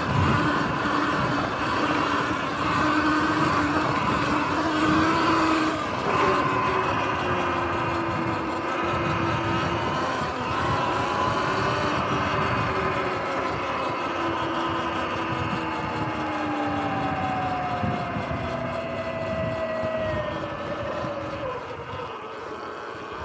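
Sur-Ron electric dirt bike's motor whining while it rides over bumpy grass, its pitch shifting with speed, over a rough rumble of tyres and wind. Near the end the whine falls in pitch and fades as the bike slows.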